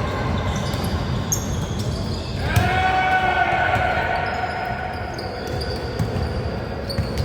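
Basketball game in a gym: the ball bouncing on the hardwood amid steady crowd and court noise, with short high squeaks scattered through. About two and a half seconds in, a drawn-out shout rings out for over a second.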